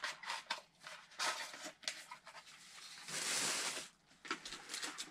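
Small rustles, taps and scrapes of gifts being handled, with one louder rustle lasting nearly a second about three seconds in.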